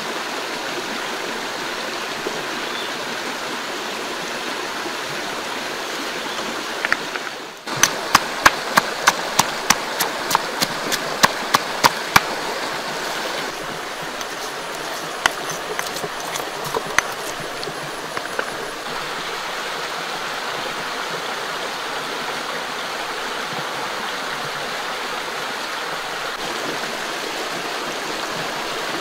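Shallow rocky stream flowing steadily. About eight seconds in comes a quick run of sharp knocks, about three a second for four seconds, then a few scattered knocks.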